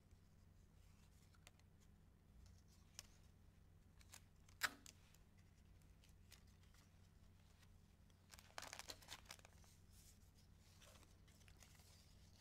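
Faint handling of paper strips on a tabletop, mostly quiet, with one sharp tap about four and a half seconds in and a short spell of paper rustling around eight to nine seconds in.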